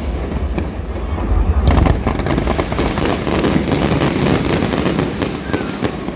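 Fireworks display: a dense, continuous crackle of overlapping bangs and pops, with a heavy low rumble under it for the first two seconds.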